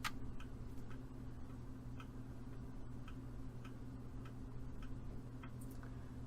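Faint ticks about once a second over a steady low hum.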